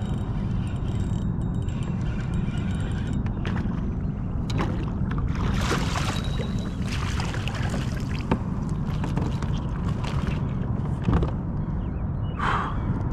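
Speckled trout thrashing and splashing at the surface as it is scooped into a landing net, the splashing densest in the middle, over a steady low rumble.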